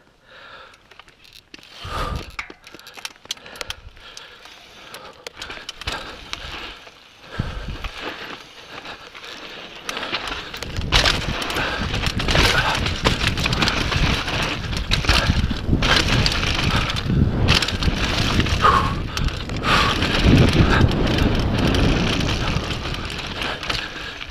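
Mountain bike riding over rock and dirt: tyres crunching, with the bike rattling and knocking over bumps. Sparse knocks at first, then louder and busier from about ten seconds in.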